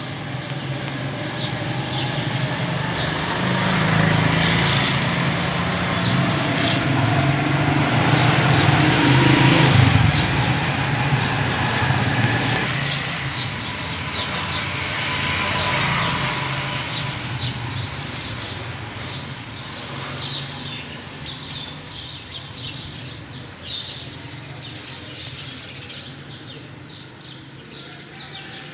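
A motor vehicle's engine going by, swelling for several seconds and then slowly fading away, with faint bird chirps.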